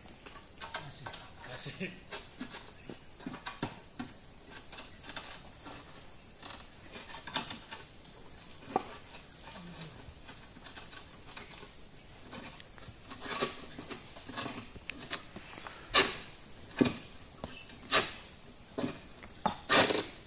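Steady high insect drone with scattered faint clicks. From about two-thirds of the way in comes a series of sharp knocks, roughly a second apart and growing louder toward the end: a long-pole harvesting sickle (egrek) cutting at an oil palm's fronds and fruit bunch.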